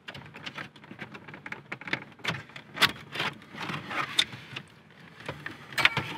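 Irregular clicks, taps and knocks of car interior trim parts being handled and fitted by hand, loudest about three seconds in and near the end.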